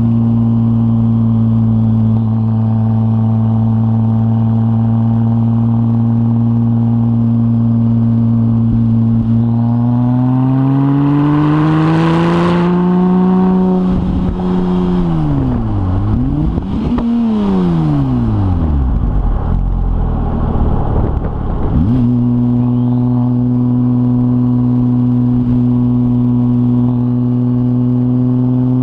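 2004 Porsche 996 Turbo's flat-six engine with a decat stainless Kline exhaust running steadily. About a third of the way in it is revved up, falls and rises again twice, and then drops back abruptly to its earlier steady note.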